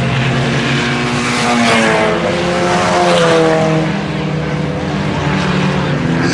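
IMCA Sport Compact race cars' four-cylinder engines running at speed, with engine pitch rising and falling about a second or two in as cars pass.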